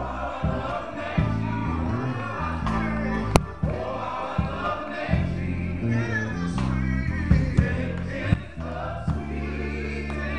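A men's gospel group singing together into handheld microphones, with low accompanying notes stepping along underneath. A single sharp click comes about a third of the way in.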